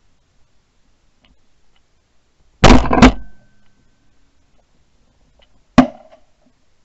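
Shotgun shots, picked up by a camera mounted on the gun. Two shots come in quick succession about two and a half seconds in, then a single shot about six seconds in.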